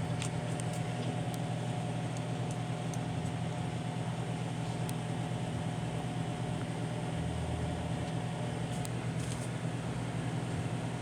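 Kenmore microwave oven running while heating, a steady low hum with a faint higher tone above it and a few faint ticks. There are no arcing or sparking sounds.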